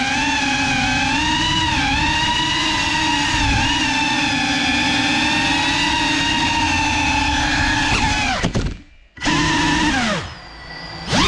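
GEPRC Cinelog 35 cinewhoop drone's motors and ducted propellers whining, the pitch rising and falling with the throttle. About eight seconds in, the throttle is cut and the whine drops away almost to nothing. It spins up again briefly, sinks to a low hum, and revs back up near the end.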